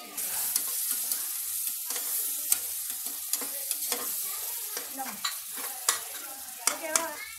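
Chopped tomatoes, onions and green chillies sizzling and frying in an aluminium pressure cooker while a perforated steel ladle stirs them, scraping and clicking against the pot. The sizzle starts just after the beginning, with sharp ladle clicks scattered throughout.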